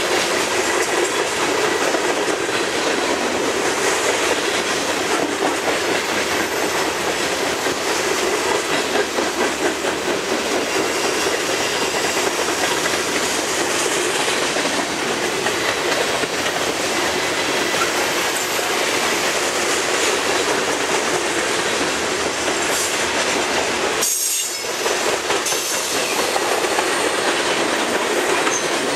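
Freight train's covered hopper cars rolling past at close range: a steady rush of steel wheels on rail with clickety-clack over the rail joints.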